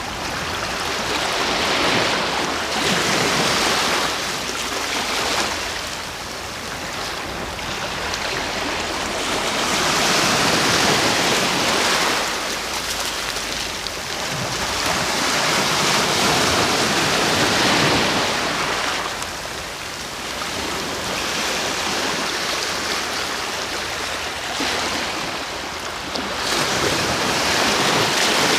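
Ocean waves breaking and washing on the shore, the surf swelling and ebbing in slow surges every few seconds.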